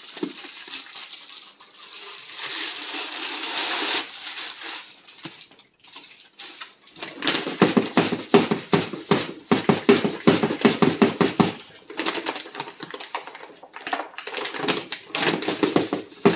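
Dry rolled oats poured from a plastic bag into a foil Mylar bag, a hiss that swells over the first few seconds. Then the filled Mylar bag is shaken and worked in its plastic bucket to settle the oats, a long run of quick crinkling rattles in spells.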